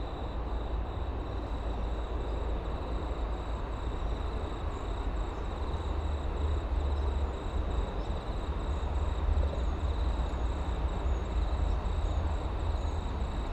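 Steady low rumbling noise outdoors, with a faint, steady high-pitched drone of insects above it.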